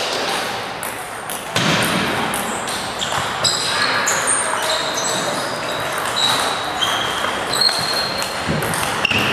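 Table tennis rally: the ball clicks sharply off bats and table many times, with short high pings, echoing in a large hall over a steady din of other tables and voices.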